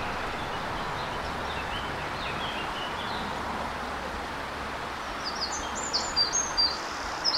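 Steady rush of a small woodland stream, with small birds chirping over it: a run of short notes in the first few seconds, then a quicker, higher run of chirps near the end.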